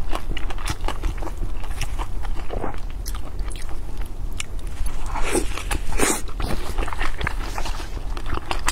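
Close-miked eating of steamed dumplings with a fried egg crust: steady wet chewing and biting, small mouth clicks and smacks, with a few louder bites a little past halfway.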